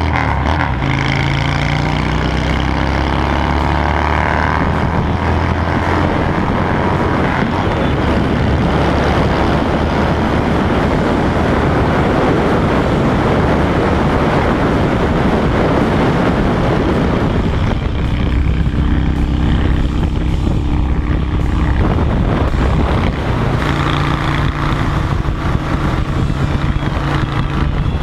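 Honda Shadow 750's V-twin engine running loud through a new modified exhaust with a fishtail tip. It pulls up through the revs at the start, then holds a steady pitch. A rushing noise covers the engine for a stretch in the middle.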